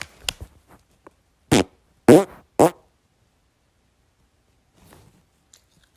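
Three short farts about half a second apart, the middle one the longest and loudest.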